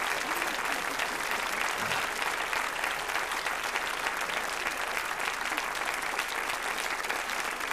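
Studio audience applauding steadily: a dense patter of many hands clapping.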